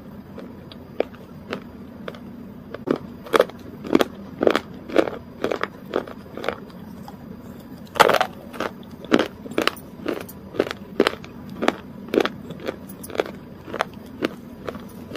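Close-miked eating sounds: crisp bites and chewing, with sharp irregular crunches about twice a second, the loudest about eight seconds in.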